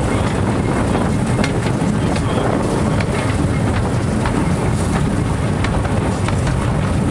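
Narrow-gauge train running along the track: a steady low rumble with scattered wheel clicks on the rails, and wind buffeting the microphone.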